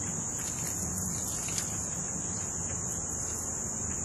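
Crickets chirring in a steady, unbroken high drone over a low background rumble, with one faint click about one and a half seconds in.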